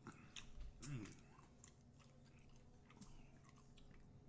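Faint chewing and wet mouth sounds, with a few soft clicks and a short low hum about a second in.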